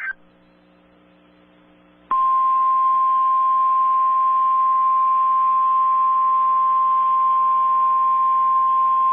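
NOAA Weather Radio 1050 Hz alert tone: one loud, steady single-pitch tone that switches on abruptly about two seconds in and holds unbroken, after a faint stretch of radio hiss and hum. It is the attention signal that comes before a watch or warning message.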